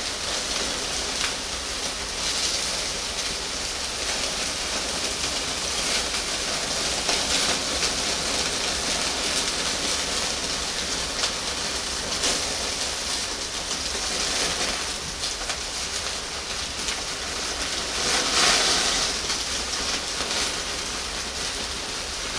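Pork belly sizzling on a grill grate over charcoal: a steady hiss with occasional small pops, swelling louder briefly near the end.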